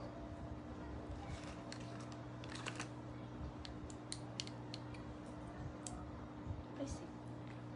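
Light, irregular clicks and taps from small objects being handled, some coming in quick clusters, over a faint steady low hum.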